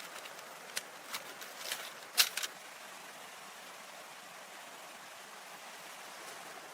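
Steady rush of running water, with a handful of sharp clicks in the first two and a half seconds, the loudest about two seconds in.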